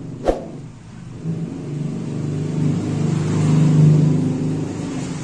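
A sharp click just after the start. Then a motor vehicle's engine hum swells to a peak about four seconds in and fades again, as a vehicle going by does.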